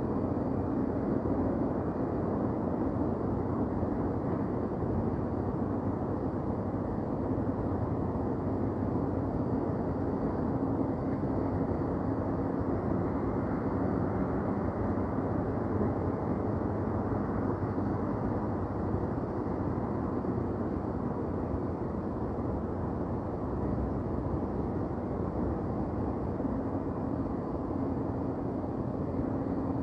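Downtown city ambience: a steady, even low rumble with a faint humming tone running through it and no single event standing out.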